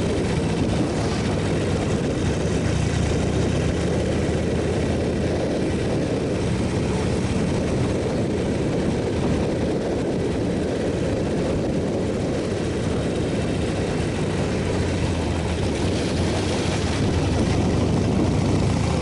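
Motorcycle engine running steadily while riding, under a constant rushing noise; it gets slightly louder near the end.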